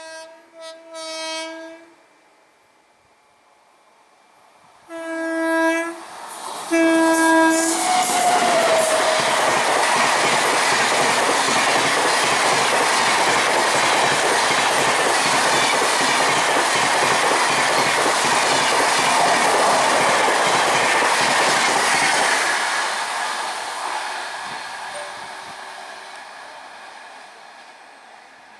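Indian Railways express train's locomotive sounding its horn in two pairs of short blasts, then the train passing at speed: a loud, steady rush of wheels on rail with clickety-clack that fades away over the last few seconds.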